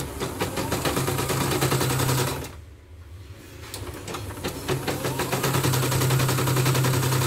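Computerized embroidery machine, covers off, stitching: a fast, even rattle of needle strokes over a steady motor hum. It pauses for about a second near the middle, then starts stitching again.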